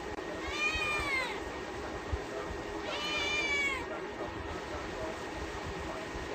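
Domestic cat meowing twice, two drawn-out meows that each rise and then fall in pitch, about two and a half seconds apart.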